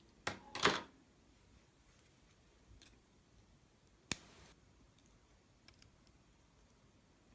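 Small sharp clicks of metal tweezers handling lock pins and springs from a dismantled pin-tumbler lock: two close together near the start, one sharper click about four seconds in, then a few faint ticks.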